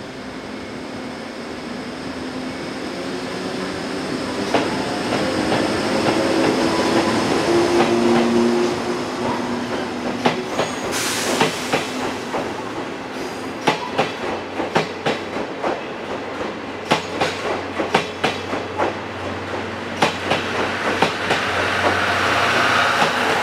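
EF65 electric locomotive pulling away with a train of blue passenger coaches: a motor hum grows louder over the first several seconds, then the coach wheels clack over the rail joints in a run of sharp clicks as the train passes. A brief high-pitched hiss about eleven seconds in.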